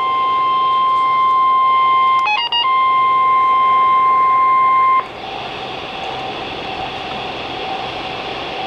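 NOAA Weather Radio warning alarm tone: a steady, loud tone near 1 kHz that is broken a couple of seconds in by a few quick beeps of other pitches, then resumes. It cuts off suddenly about five seconds in, leaving steady radio hiss.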